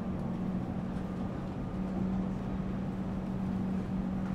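Moving city public-transport vehicle heard from inside the passenger cabin: a steady rumble with a steady low hum.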